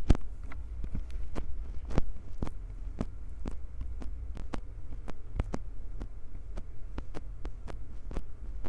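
Fingers gripping and squeezing a Tascam handheld recorder right at its microphones: a steady low handling rumble with irregular sharp taps and clicks, roughly two a second, the strongest just after the start and about two seconds in.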